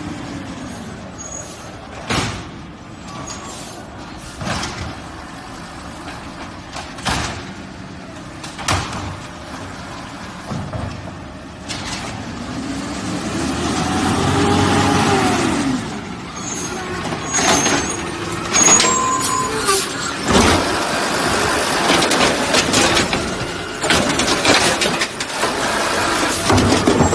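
Garbage truck at work: a few isolated knocks early on, then the engine speeds up and drops back in the middle, followed by a run of repeated knocks and bangs over its running.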